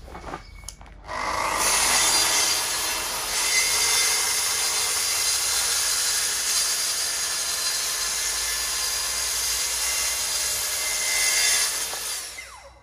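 Electric circular saw running along a guide rail, ripping a composite decking board lengthwise: it starts about a second in, cuts steadily and loudly, and stops near the end.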